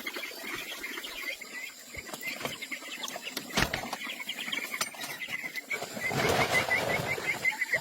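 Chickens calling in a quick run of short, high, repeated notes, with a sharp click a few seconds in and a burst of rustling, like flapping wings, about six seconds in.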